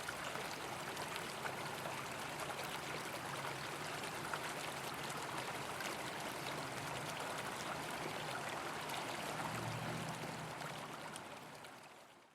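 Stream water running and trickling steadily, fading out over the last second or so.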